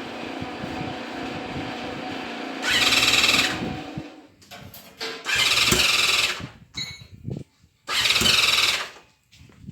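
Honda CBX's air-cooled 1047cc inline-six engine running through open, unsilenced exhausts. It runs steadily for a few seconds, then is revved hard three times, with the engine dropping back between revs.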